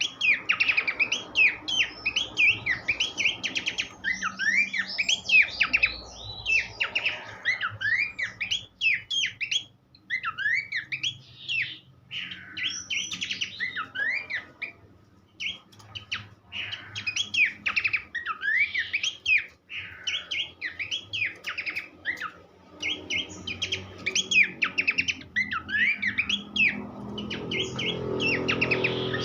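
Pelanduk semak (Horsfield's babbler) singing a long, fast run of whistled chirps and trills, with quick up-and-down slurred notes and brief pauses. A low hum rises beneath the song near the end.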